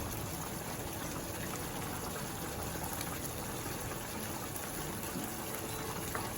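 Pan of tomato and seafood sauce (shrimp and sole) cooking on the stove, giving a steady, even hiss of simmering liquid as crème fraîche goes in.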